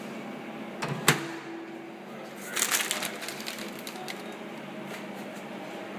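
Microwave oven door pushed shut: a light knock, then a sharp latch click about a second in. A brief rustle follows, over a low steady hum.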